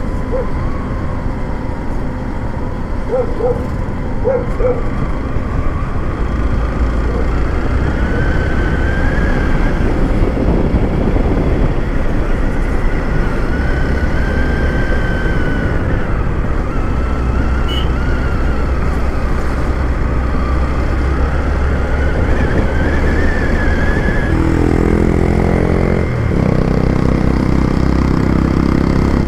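Motorcycle riding at road speed: the engine runs under a steady rush of wind noise, with a faint whine that wavers up and down. About 24 seconds in, a clearer engine note comes through.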